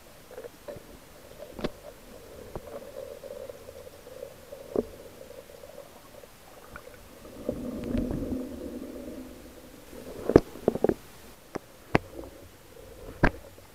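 Underwater sound heard through a camera housing on a speargun: a muffled rumble of churning, bubbly surge water over a faint steady hum. The rumble swells about eight seconds in, then several sharp knocks and clicks come near the end.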